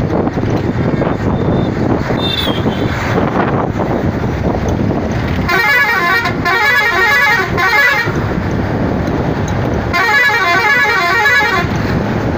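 A vehicle horn with a rapidly shifting, warbling pitch sounds twice, the first time for about two and a half seconds and the second for under two seconds. Under it runs a steady rush of road and wind noise from a moving vehicle.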